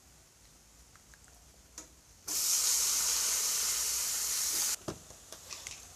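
Chopped potato and brinjal pieces hitting hot mustard oil in a steel kadai and sizzling loudly for about two and a half seconds, then cutting off sharply, followed by a single knock.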